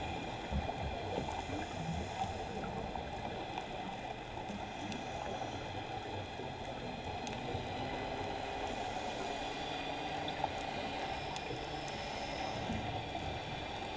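Underwater sound picked up by a camera in its housing: a steady muffled water rush with faint bubbling and gurgling from scuba divers' exhaled air.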